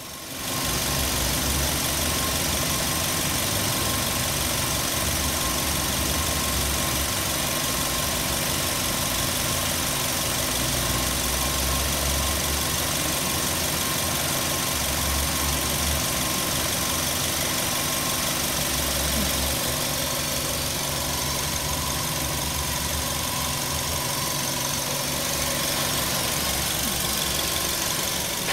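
Suzuki Swift's 1.5-litre four-cylinder petrol engine idling steadily, heard close up from the open engine bay.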